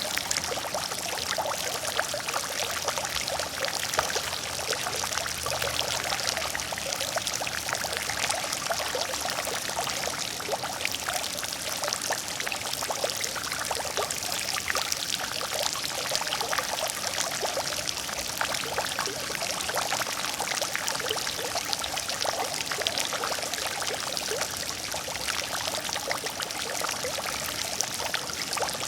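Water fountain splashing: a steady, unbroken fall of water with many small droplet splashes.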